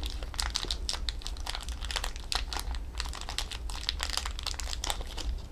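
Small plastic parts bags from a brake caliper rebuild kit crinkling and rustling as they are handled, in a quick, irregular run of crackles.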